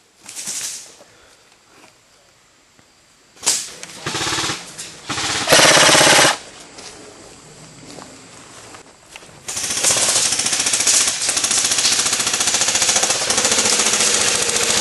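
Airsoft rifle firing on full auto: a short burst, then a long unbroken burst of rapid shots starting near two-thirds of the way in.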